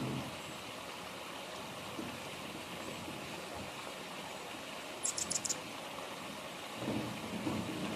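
Hummingbird giving a quick burst of about five sharp, high-pitched chips about five seconds in, over a steady outdoor hiss. A low rumble rises near the end.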